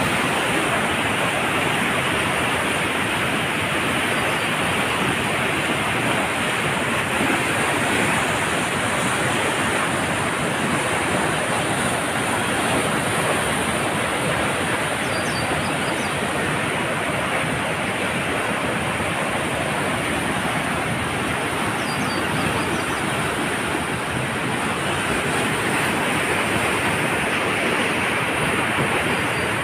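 Steady rush of the Cauvery river in flood, a wide, fast current of muddy water churning past.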